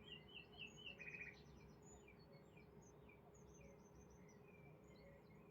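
Faint bird chirping and twittering: a quick run of warbling notes in the first second or so, then scattered short chirps, over a steady low hum.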